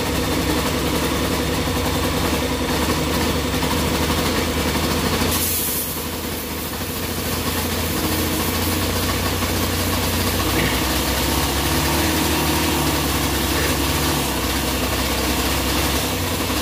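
Honda TMX motorcycle's single-cylinder four-stroke engine idling steadily, running again after a roadside repair. The sound dips briefly around six seconds in, then settles back.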